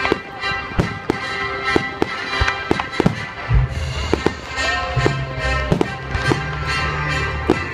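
Background music with held bass notes, and aerial fireworks bursting with many sharp pops and crackles over it.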